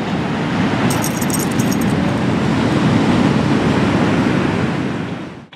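Loud, steady rushing noise of breaking surf and wind at the shoreline, which cuts off suddenly near the end.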